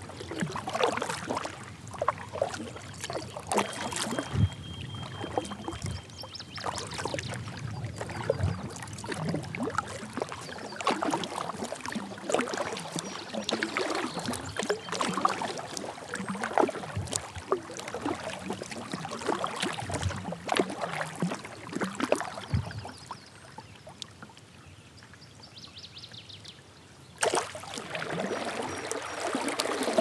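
Kayak paddle strokes, with blades dipping and pulling through lake water and water splashing and dripping off them in an irregular rhythm. The paddling eases off for a few seconds near the end, then starts again abruptly.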